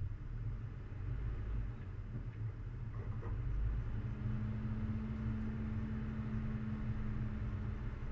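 4x4 vehicle driving slowly up a rough dirt track: a steady low rumble of the engine and running gear, with a steady droning tone joining about four seconds in.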